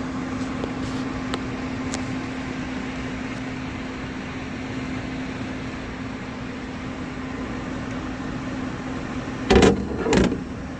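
Gas furnace blower fan running with a steady hum and air noise, the burner not firing. Two loud knocks sound near the end.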